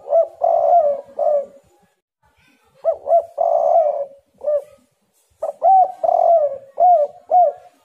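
Spotted dove (tekukur) calling: three repeated cooing phrases a couple of seconds apart, each a quick run of short notes with one longer note.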